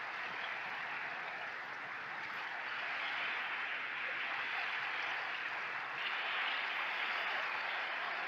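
Gentle waves washing on a shingle beach: a steady hiss of water over pebbles that swells a little about three seconds in and again about six seconds in.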